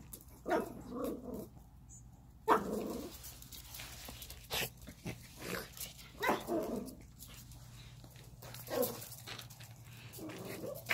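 Small dogs barking and growling in several short bouts.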